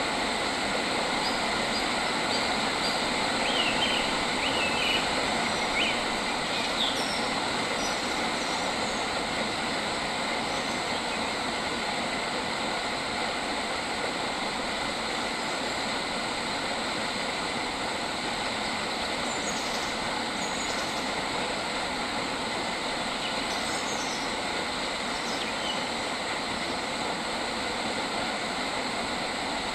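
A steady, even rushing noise throughout, with a few short bird chirps in the first several seconds and fainter ones about two-thirds of the way through.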